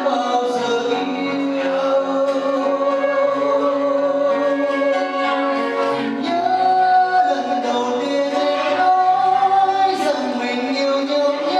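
A man singing into a microphone, holding long notes, with an acoustic guitar accompanying him.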